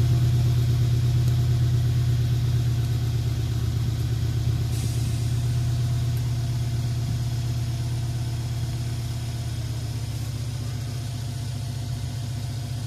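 Mercedes-Benz CLS 500's V8 idling after a cold start, heard at the tailpipes. It is a steady, even exhaust note that gradually gets quieter.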